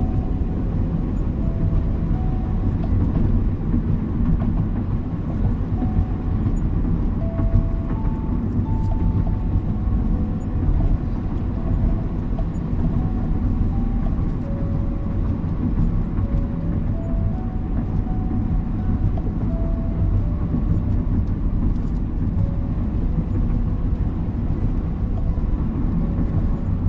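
Steady, low rumble of a car's road and engine noise while driving, with a soft, slow melody of single notes laid over it.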